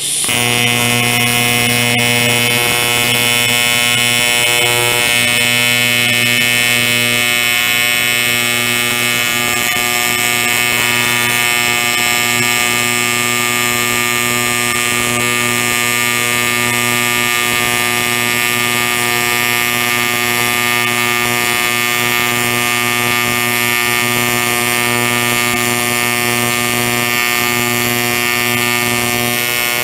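TIG welder's arc running steadily as a bead is laid along a frame joint, an even electric buzz over a hum. The arc strikes right at the start.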